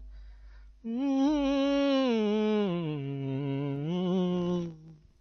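A man singing a long wordless note, starting about a second in and fading out near the end, its pitch dipping down and then rising again.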